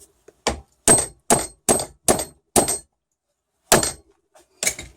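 Small hammer tapping a glued wooden dowel into a hole in a wooden tiller: six quick taps, a pause, then two more, each with a faint high ring.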